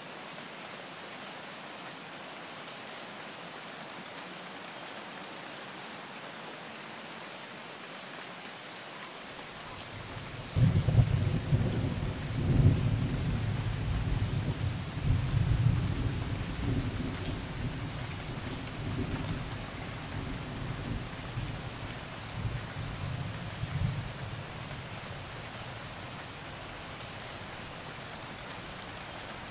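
Steady rain, with a long low rumble of thunder that breaks in suddenly about ten seconds in and fades away over some fourteen seconds.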